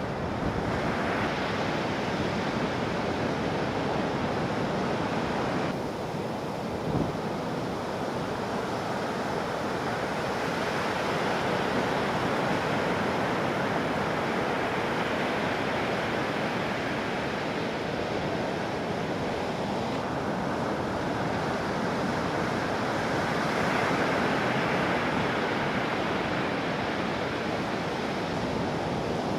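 Ocean surf from a typhoon swell, waves breaking and washing continuously, with wind on the microphone. The sound changes abruptly about six seconds in.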